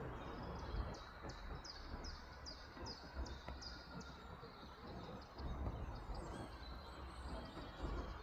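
A bird calling a quick series of about ten high, downward-sweeping notes, roughly two and a half a second, fading into fainter scattered chirps after about four seconds, over a steady low rumble.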